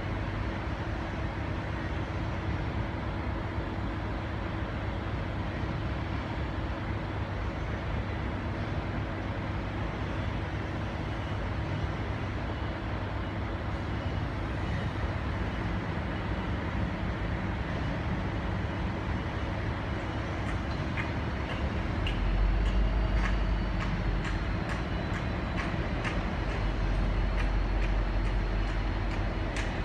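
V/Line N class diesel-electric locomotive idling, a steady low rumble with a held engine tone; the low rumble grows deeper and louder about two-thirds of the way through, with a few faint clicks near the end.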